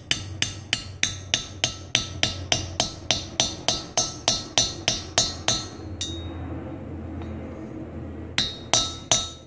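Small hammer lightly tapping a 10 mm 12-point socket to drive a valve stem oil seal down over its valve guide in an aluminium cylinder head: quick metallic taps at about four a second, a pause of a couple of seconds, then a few more taps near the end. The tapping goes on until it sounds solid, the sign that the seal is fully seated.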